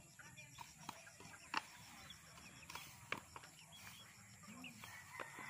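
Faint outdoor background with scattered sharp clicks and faint distant calls and voices.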